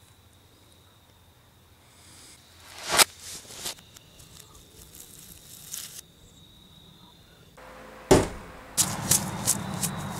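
A single sharp click about three seconds in, then near the end footsteps crunching on dry leaves and grass.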